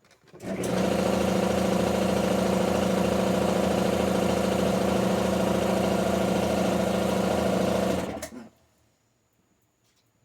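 Small electric motor spinning up, running steadily for about eight seconds, then winding down.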